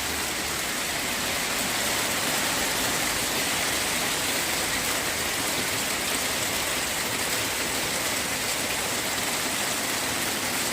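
Heavy rain pouring down steadily, an even wash of downpour with no break.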